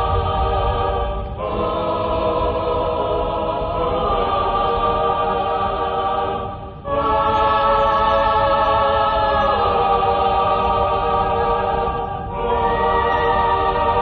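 Film score: a choir singing long held chords, moving to a new chord every few seconds.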